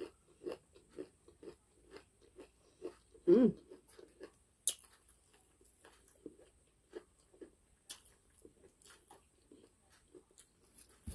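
Close-up chewing of crispy fried chicken: irregular crunching and wet mouth sounds as the breading is bitten and chewed, with one louder short hum about three seconds in.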